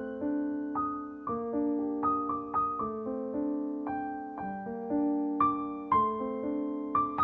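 Background piano music: single notes and chords struck one after another and left to ring and fade, in a gentle, unhurried tune.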